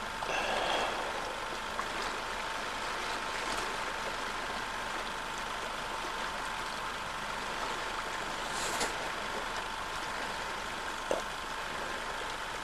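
Steady hiss with a faint, constant whine: the camcorder's own running noise over an otherwise quiet scene. A couple of faint, brief sounds stand out, one just after the start and another about nine seconds in.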